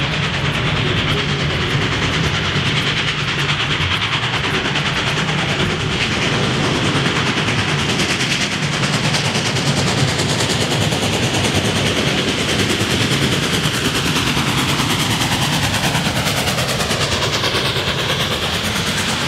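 Freight train rolling past: the steady, unbroken noise of cars going by on the rails.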